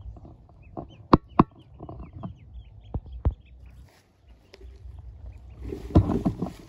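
Newly hatched Pekin ducklings peeping in a plastic mesh basket, with sharp knocks on the plastic, the loudest two about a second in. A burst of clattering and scrabbling on the basket comes near the end.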